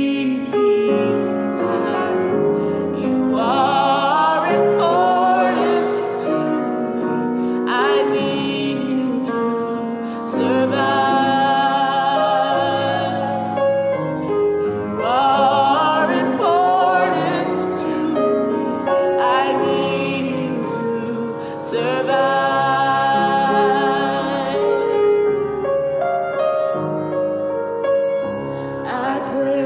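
A woman singing a gospel song with a wide vibrato, accompanied by piano chords.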